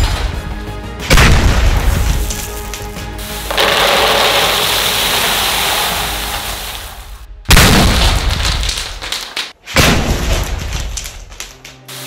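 Cast-iron popcorn cannon firing: sudden loud booms as the pressurised lid is released and the popped corn blasts into the net bag, about a second in, about seven and a half seconds in and again near ten seconds. In between, a rushing rustle of popcorn pouring from the net bag into a plastic bucket, over background music.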